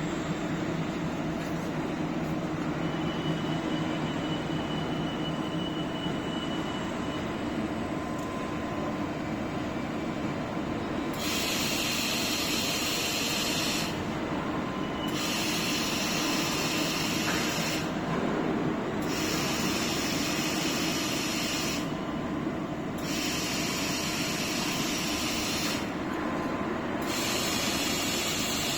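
Laser hardening machine running its automatic cycle on cutting pliers: a steady machine hum, joined partway through by a hiss about three seconds long that repeats every four seconds or so, once per plier processed.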